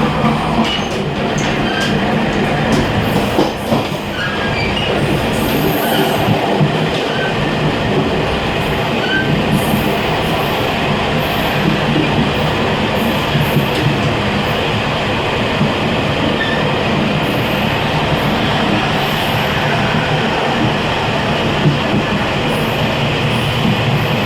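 Running noise at the gangway between two Fu-Hsing passenger coaches of a moving train: a steady, loud rumble of wheels on the rails, with scattered short squeaks and clicks, mostly in the first half.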